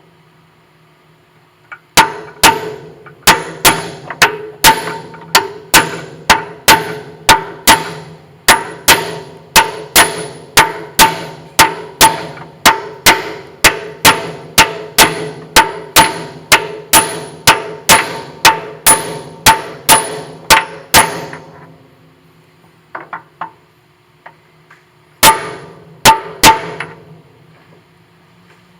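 Hammer striking a large aluminum block to drive the lathe's gear selector shaft through its bearing into the gear. The blows come steadily at about two a second with a metallic ring, then stop, and three more blows follow after a pause near the end.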